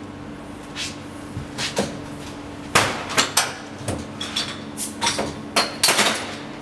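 A series of sharp metallic knocks and clatters as kitchen utensils and containers are handled and set down, the loudest about three seconds in and again near the end, some ringing briefly. A steady low hum runs underneath.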